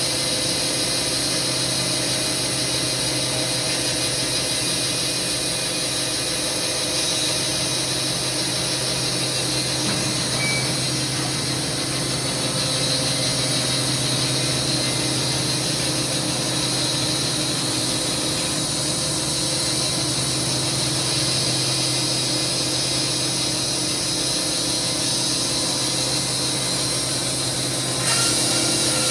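Wood-Mizer industrial band sawmill running with a steady machine hum and hiss. The sound gets louder and brighter about a second before the end.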